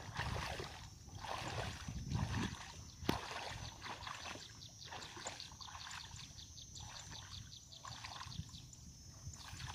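Water sloshing and splashing as a person wades through knee-deep floodwater, about one slosh per stride, loudest in the first few seconds. A sharp click comes about three seconds in, and a steady high whine with fast faint ticking runs underneath.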